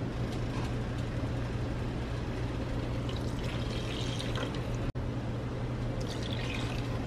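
Chicken broth poured from a measuring cup into a saucepan of onion-and-flour roux, the liquid splashing into the thick mixture in two stretches, about three seconds in and again near the end. A steady low hum runs underneath.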